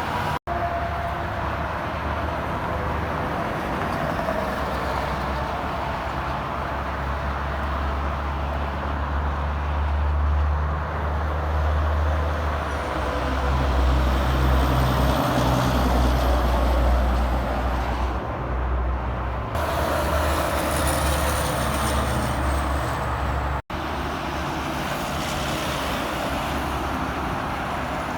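Interstate highway traffic, trucks and cars passing in a steady rumble of engines and tyres that swells in the middle. A faint high whine falls in pitch about two-thirds of the way through. The sound drops out for an instant twice, about half a second in and near the end.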